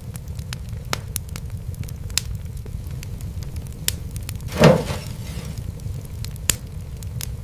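Wood fire crackling, with a steady low rumble under scattered sharp pops. One louder, longer pop comes about four and a half seconds in.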